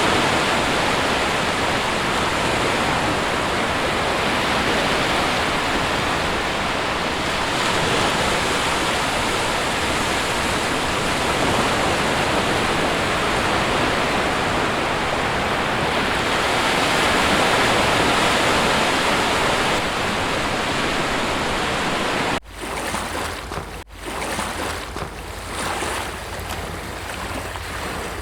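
Sea surf breaking on a shore, a dense, steady rushing wash that swells and eases. About 22 seconds in it cuts out abruptly twice and gives way to a quieter, more uneven wash of waves with a low wind rumble on the microphone.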